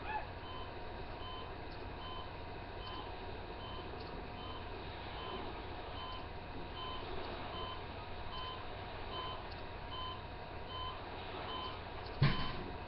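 Steady electronic beeping, one short two-tone beep about every 0.8 seconds, like a reversing alarm, over a low background hum. A single sharp thump comes near the end.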